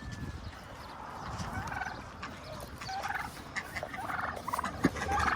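Domestic turkey gobbling: several short, rattling calls spread through a few seconds.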